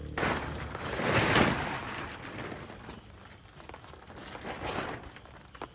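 Rustling, crinkling noise in swells, loudest about a second in, with a smaller swell near the end.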